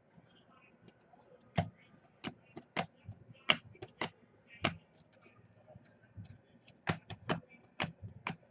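A dozen or so sharp, irregular clicks and taps, spaced unevenly and some coming in quick pairs, with fainter ticks between them.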